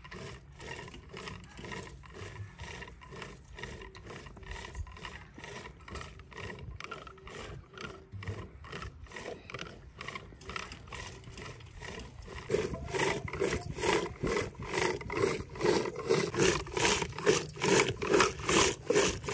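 Curd being churned by hand with a wooden churning stick in a pot, a regular rubbing swish of about two to three strokes a second, which gets louder about two-thirds of the way through. This is the churning that separates butter from the lassi.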